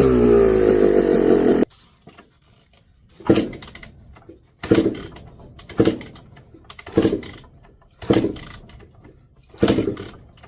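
2005 Yamaha YZ250 two-stroke engine running with its pitch falling, stopping abruptly under two seconds in. Then six evenly spaced chuffs, a little over a second apart, as the engine is kicked over for a compression test, the gauge climbing to about 210 PSI.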